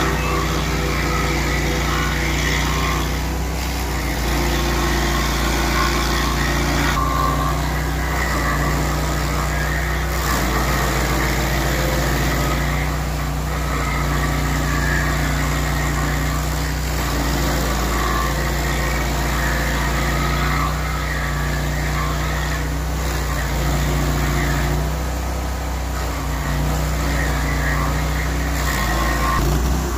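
Vermeer SC362 stump cutter running steadily, its cutter wheel grinding into a tree stump and throwing wood chips. The engine note shifts slightly every few seconds as the wheel works through the wood.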